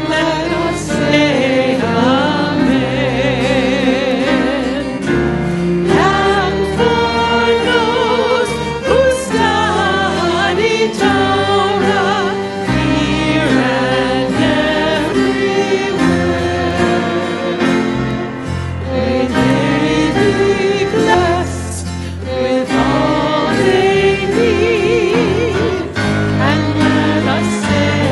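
A choir singing a slow piece in several voices with vibrato, over steady sustained low instrumental notes.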